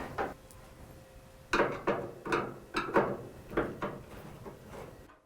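A run of sharp mechanical clicks and clacks, about two to three a second, from hands and tools working on a dryer's sheet-metal front panel during disassembly.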